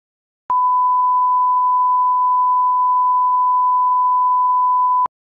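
Steady 1 kHz reference test tone of the kind played with colour bars: one unwavering pure pitch that switches on with a click about half a second in and cuts off sharply about four and a half seconds later.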